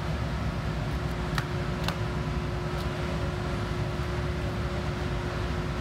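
Steady low background rumble with a constant hum running under it, and a few faint clicks about a second and a half, two seconds and three seconds in.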